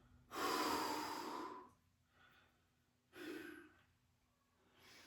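A man breathing hard from exercise exertion: a long, loud exhale of over a second, a faint breath, then a shorter sharp exhale about three seconds in, and a faint breath near the end.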